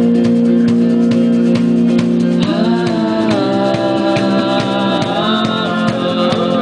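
Live acoustic band playing: strummed acoustic guitars over an electric bass line, with a held, wordless vocal line coming in about two and a half seconds in.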